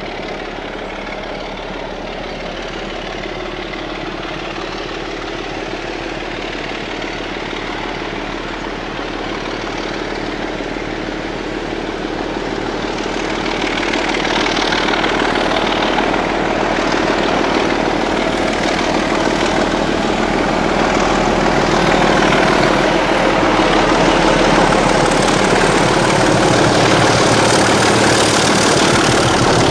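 Diesel locomotive engine working hard as it hauls a train of coaches toward the listener, a steady drone growing louder from about halfway in. Near the end the coaches roll past close by.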